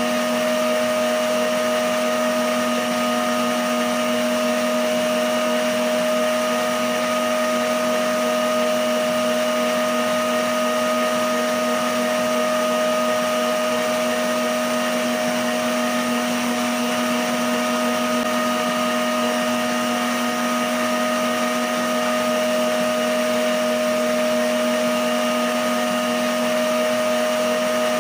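Emsan electric stand mixer running at a constant speed, a steady motor whine with a few fixed tones, its beater whipping egg yolks and sugar in a stainless steel bowl into a foam.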